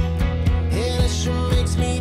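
A country song playing as background music, with a steady beat.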